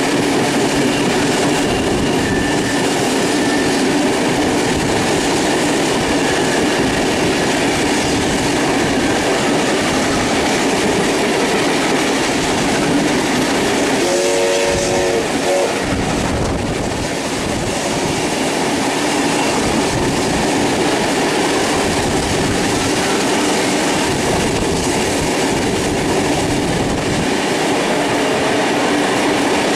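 Steam-hauled train under way, heard from on board: steady running noise and wheel clatter. About halfway through, a short whistle blast of several pitches at once lasts about a second and a half.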